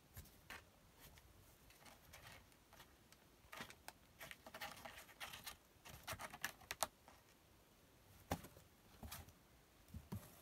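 Faint, scattered light clicks and soft rustles, like a phone being handled against bedding. They come thickest in the middle, with a few sharper taps near the end.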